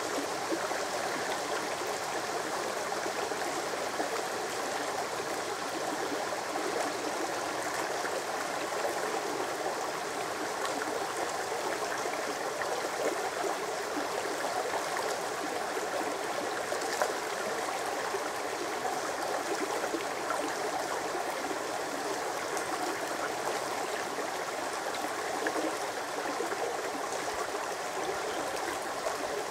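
Shallow rocky stream babbling steadily as water runs over and between stones.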